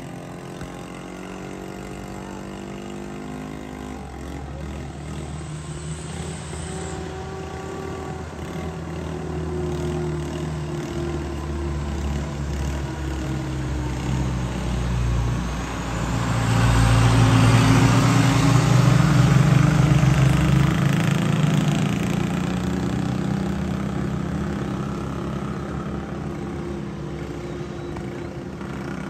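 Road traffic: motor vehicle engines running. One vehicle passes close a little past halfway, its low engine note and road noise building to the loudest point and then fading.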